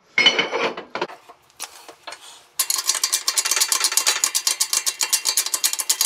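Hydraulic shop press jack, a shop press's jack running with a rapid, steady chatter of clicks, about eight a second, with a hiss behind it. The chatter starts suddenly about two and a half seconds in, as the press begins to bear down on the transmission's overdrive section.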